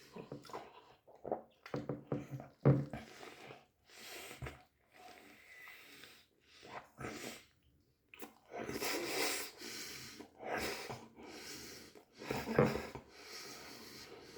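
Someone eating a doner kebab close to the microphone: chewing and breathing noises in irregular bursts, with a few short clicks.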